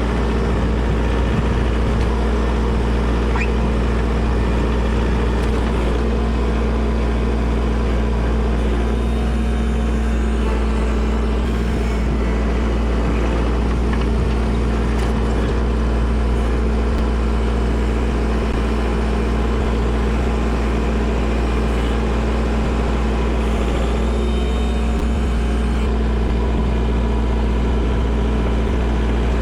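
Kubota tractor's diesel engine running at a steady speed, with no revving or pauses.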